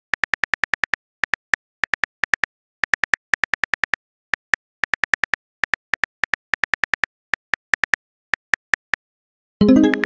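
Phone keyboard typing clicks in quick runs of taps, about eight or nine a second, with short pauses between runs. Near the end a short message chime sounds as a new text arrives.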